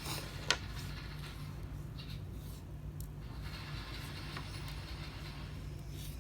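Small tools and parts handled during a phone teardown: one sharp click about half a second in, a few faint ticks, and a light scraping in the second half, over a steady low hum.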